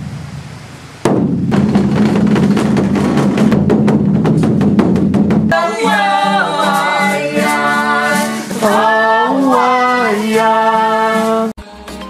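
A large drum on a stand, beaten hard with two sticks in a fast, steady roll that starts about a second in. After about five and a half seconds it gives way to women singing to an acoustic guitar, which stops abruptly near the end.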